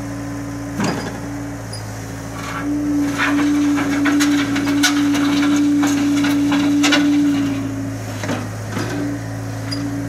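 Scat Trak 1300 HD skid steer loader's engine running at a steady pitch, louder for several seconds in the middle as the bucket is worked. Knocks and scrapes from the steel bucket against the gravel ground come through over it.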